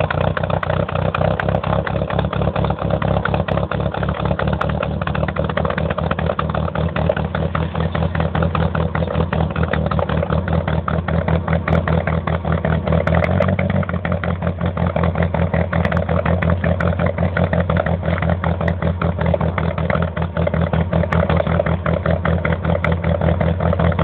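The Ford Escort 1.8 Ghia's VW-sourced 1.8 four-cylinder engine idling with an even, pulsing exhaust beat. It is fitted with a hotter camshaft, a larger carburettor and a 4-into-1 exhaust header.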